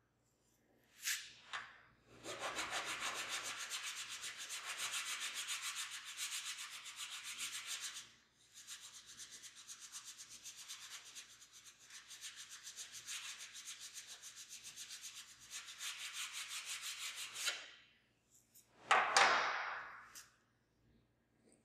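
Fast back-and-forth hand-finishing strokes rubbing across the flat face of a small clamped metal part, several strokes a second. They come in two long runs with a short break about eight seconds in. A brief louder scrape follows near the end.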